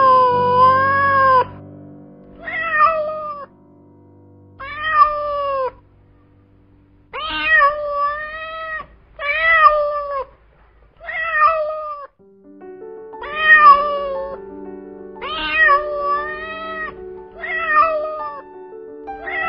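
Domestic cat meowing again and again: about ten drawn-out meows, each about a second long and a second or two apart. Background music with long held notes plays underneath.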